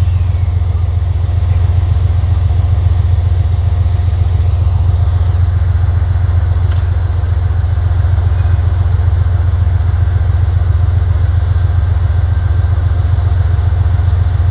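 Amtrak P32AC-DM diesel locomotive idling with a steady low rumble, and a short click about seven seconds in.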